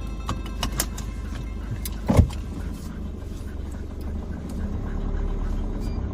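Motor vehicle running with a steady low rumble, with scattered light clicks and one louder knock about two seconds in.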